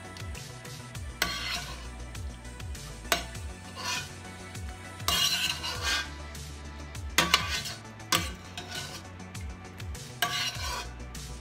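Spoon scraping and stirring through a pan of sautéed shrimp, chicken and vegetables in short, irregular strokes about once a second, over a faint sizzle.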